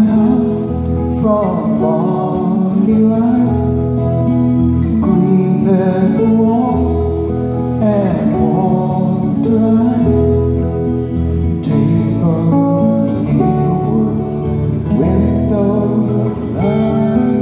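A man singing a folk song while accompanying himself on acoustic guitar, recorded live from the audience.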